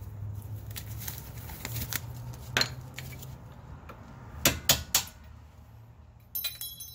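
Metal hand tool clinking and tapping against the front strut's brake-hose bracket while the brake hose lock clip is worked loose: scattered sharp clicks, three quick clicks about two thirds of the way through, and a brief ringing metallic jingle near the end.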